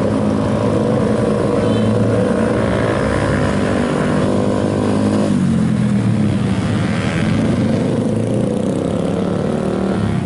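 Yamaha Vixion motorcycle's single-cylinder four-stroke engine running and revving up and down, its sound changing abruptly about halfway through.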